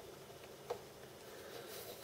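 A single faint click of a small metal pick against the plastic clips of a tail light circuit board, about two thirds of a second in, over quiet room tone.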